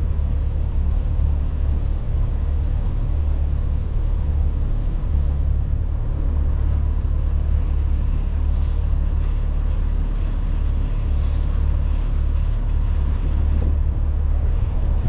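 Fishing boat under way: its motor runs steadily with a low rumble, with water and wind noise.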